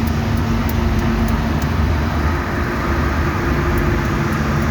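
Steady engine and road noise of a moving car, with a low hum under an even rush of tyre noise.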